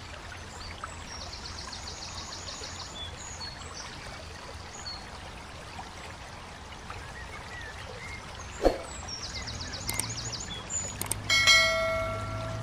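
Water being poured over plastic toy trucks, a steady pouring and splashing. A single sharp knock sounds about two-thirds of the way in. Near the end a bright, ringing notification chime is heard.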